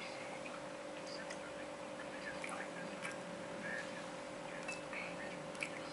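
Faint, scattered clicks of a metal fork touching a ceramic plate, a few taps spread over several seconds, over a steady low background hum.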